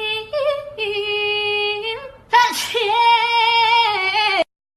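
A high voice holding long, steady sung notes: a short held note, a brief slide up, a long note, then after a breathy burst another long note. The sound cuts off abruptly near the end.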